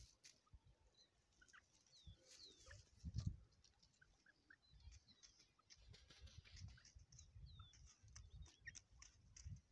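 Near silence outdoors: faint, scattered short bird chirps and little sliding notes, with a few low rumbles of wind or handling on the microphone, the strongest about three seconds in.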